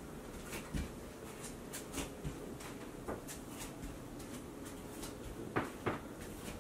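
Scattered light clicks and knocks, a few seconds apart with two close together near the end, over a faint steady hum.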